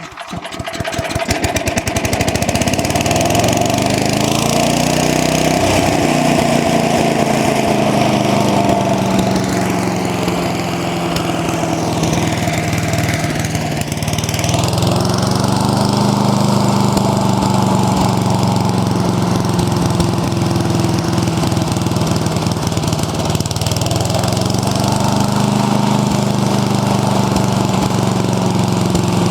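Briggs & Stratton 8 HP single-cylinder engine of an MTD Yard Machine chipper/shredder starting up and settling into a steady run, freshly tuned up. Its speed dips briefly about halfway through and again later, then picks back up.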